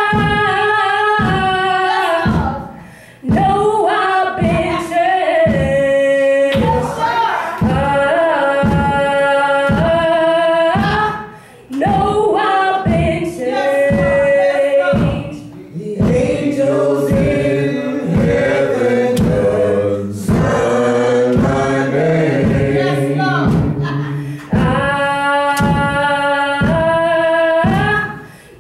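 A woman singing a gospel song through a microphone and church PA, over accompaniment that keeps a steady beat of about two strokes a second. The melody comes in long held phrases with brief breaks between them.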